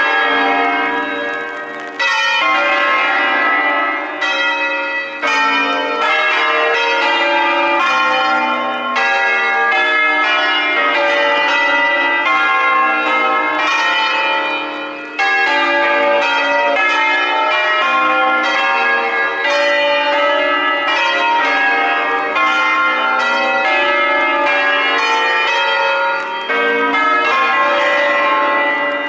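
Full peal of an eight-bell ring tuned in B-flat (Pruneri bells of 1911, the B-flat and C bells recast by Cavadini in 1954), all bells swung freely together on wheels in the Italian 'a distesa' manner. The strikes of the different bells overlap continuously in a dense, loud clangour of many pitches.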